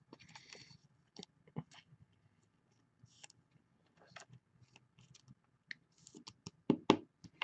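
Faint, scattered clicks and soft rustles of a trading card and its plastic holder being handled, with a quick run of louder clicks near the end.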